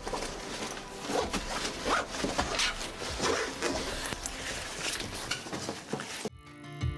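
Footsteps, shuffling and clothes rustling on a wooden attic floor as several people move off, with short scraping and rubbing sounds. Near the end this cuts to guitar music.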